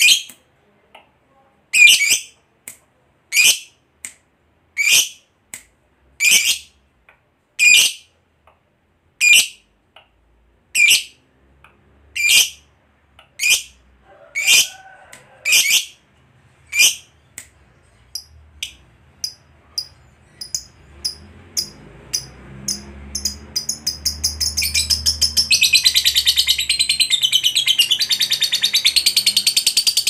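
Masked lovebird calling: single sharp, high chirps about every second and a half, coming faster and shorter past the middle, then running together into a continuous rapid chatter for the last six seconds. This is the long 'ngekek' trill prized in calling lovebirds.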